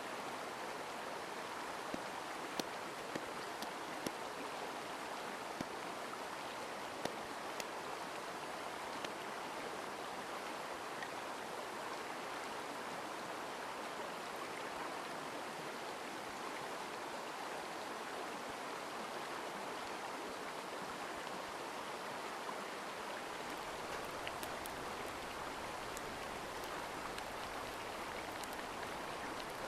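Mountain stream rushing steadily, with a few sharp clicks scattered through the first third.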